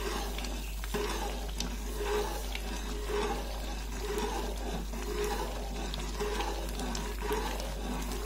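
Boiling water bubbling in a pan as semolina (rava) is poured in slowly and stirred in with a metal spoon, the stirring coming in soft, regular strokes: the rava going into the boiling water for upittu.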